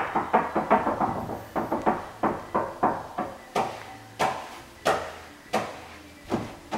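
Hard, sharp clacks of fingers pounding a laptop keyboard, each with a short ring. They come about three a second at first and slow to less than two a second after about three and a half seconds.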